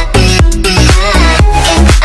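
Background dance music with a steady beat and heavy bass.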